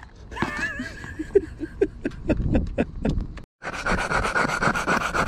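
Hand air pump inflating pneumatic skate wheels: short rhythmic pumping strokes, slower at first, then quicker after a brief break about three and a half seconds in.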